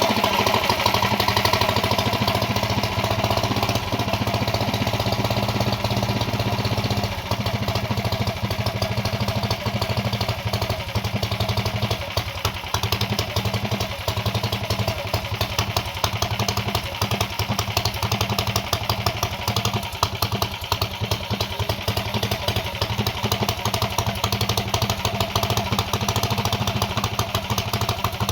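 Yamada VR460's engine idling steadily, a fast even pulsing. It is a little louder and higher for the first several seconds, then settles into a steady idle.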